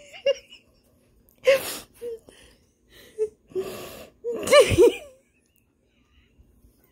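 People laughing in breathy, wheezing, gasping bursts, three short outbursts, the last and loudest with a high squealing laugh.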